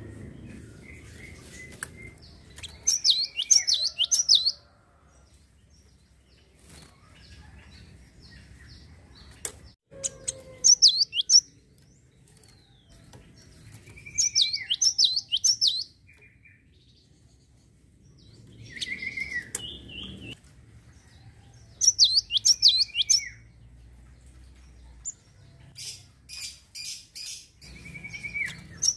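Java sparrow (gelatik) singing in repeated phrases. Each phrase is a short falling note followed by a quick run of high chirps, and a phrase comes every four to eight seconds, with scattered sharp clicks between.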